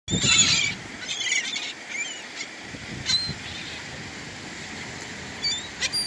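A flock of gulls calling: a loud burst of rapid, harsh squawks in the first second and another run just after, then short single cries with sliding pitch every second or so.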